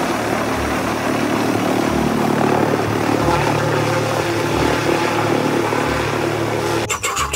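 Black Hawk helicopter in flight: steady turbine and rotor noise. A fast, regular beating sets in near the end.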